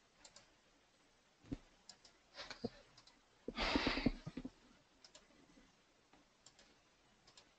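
Scattered faint computer-mouse clicks, with a breath on the microphone lasting about a second, about three and a half seconds in.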